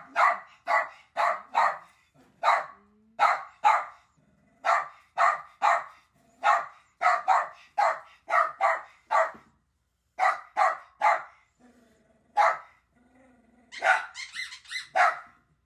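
A dog barking over and over in short sharp barks, about two a second, with a brief lull and a low growl about three-quarters of the way through, then a quick flurry of barks near the end.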